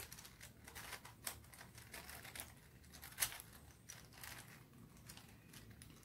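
Plastic layers of a budget 4x4 Rubik's cube clicking and clacking as they are turned in quick, irregular twists during an edge-pairing move, with one louder clack about three seconds in.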